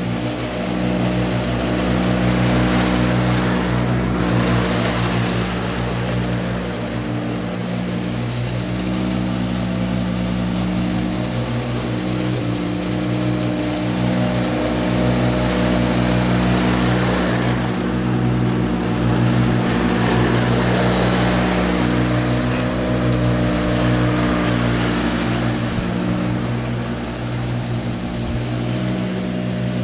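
Ride-on lawn mower's engine running steadily while it cuts grass, the rougher cutting noise swelling twice as the mower moves about.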